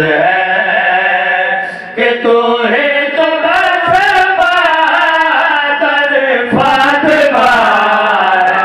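Male voices chanting a qasida, a devotional poem in praise of the Ahl al-Bayt, in long held melodic lines that waver and slide in pitch.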